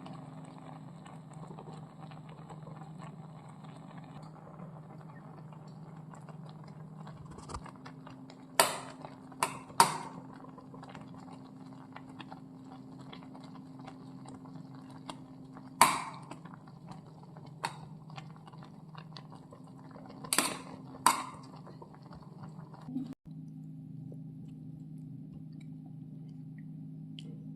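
Utensils clinking and knocking against cookware, about half a dozen sharp clinks in small groups, over a steady low hum.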